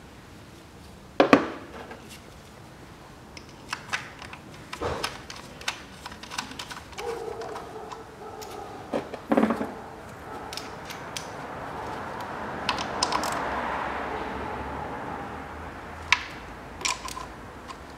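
Clicks and knocks of hand work on a car engine: a new Delphi ignition coil being pushed down onto its spark plug and its hold-down bolt tightened with a ratchet, in a handful of separate sharp clicks. A soft rushing sound swells and fades in the middle.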